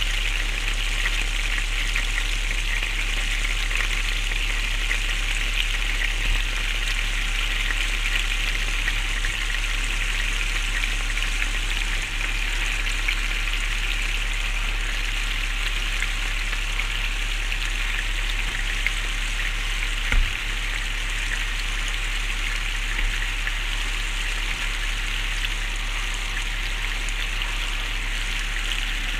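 Minced-meat balls browning in hot oil in a frying pan: a steady sizzle and crackle of the frying oil. A single soft knock sounds about twenty seconds in.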